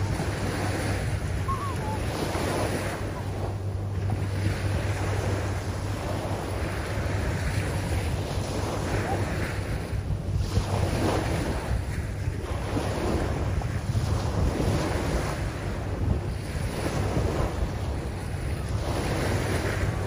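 Small sea waves breaking and washing up a shelly beach, the surf swelling and easing every few seconds. Wind rumbles steadily on the microphone underneath.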